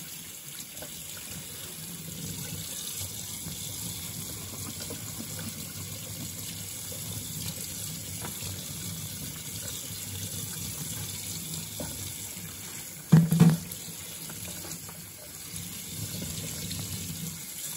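Kitchen tap water running and splashing onto a stainless steel grill grease pan held under it in a stainless steel sink while the pan is rinsed. A brief loud double thump about three-quarters of the way through.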